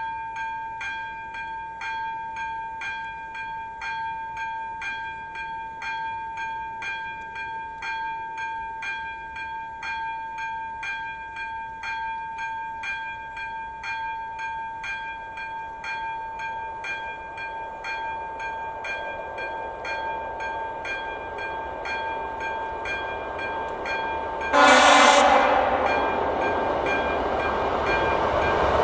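AŽD ZV-02 electric level-crossing bell ringing in rapid, regular strokes while a passenger train's rumble builds as it approaches. About 25 s in the train sounds a short horn blast, the loudest sound, and its running noise carries on under the bell.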